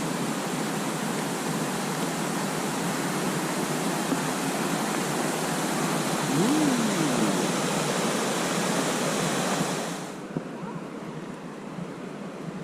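Rushing stream or river water at a water crossing, a steady rush that drops abruptly to a quieter rush about ten seconds in.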